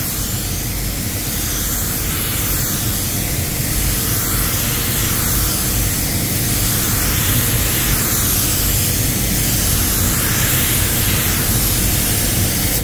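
Walcom Slim X Light 1.3 spray gun spraying clear coat at 2.4 bar: a steady hiss of air and atomised lacquer that starts abruptly and swells and fades slightly about every second and a quarter as the gun sweeps across the panel.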